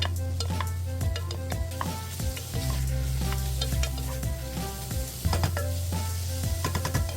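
Food sizzling as it fries in a pan, stirred with a utensil that clicks and scrapes against the pan many times, over background music.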